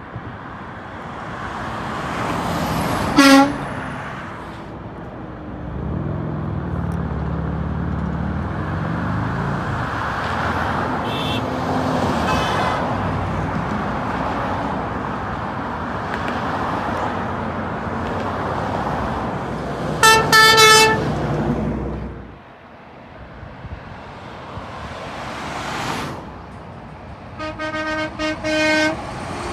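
Road traffic passing, with a heavy engine's low rumble building about six seconds in. A horn gives a short toot about three seconds in, a louder blast of about a second near twenty seconds, and a string of quick toots near the end.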